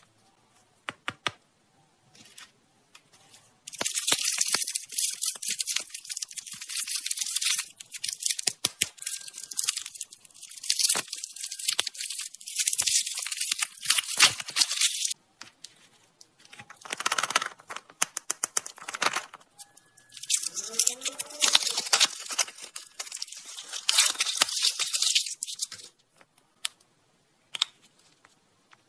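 Plastic candy wrappers crinkling and tearing as packaging is handled and opened, in two long spells of dense crackling with sharp clicks, the first starting about four seconds in.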